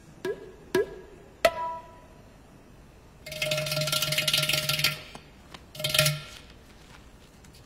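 Film background music: three sharp percussive hits with short ringing notes in the first second and a half, then a held note inside a hissing wash for under two seconds, and a short repeat of it about a second later.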